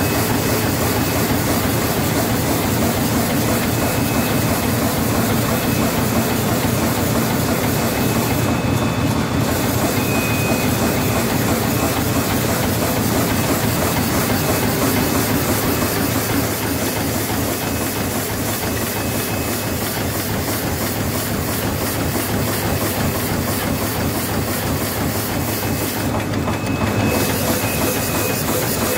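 Glue patch handle bag-making machine running at production speed: a fast, steady mechanical clatter with a hiss over it that drops out briefly twice.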